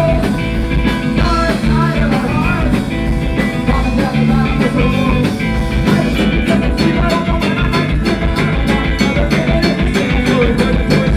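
Live rock band playing an instrumental passage between sung verses, with bass, a wavering melodic line and a steady drum beat that quickens about halfway through.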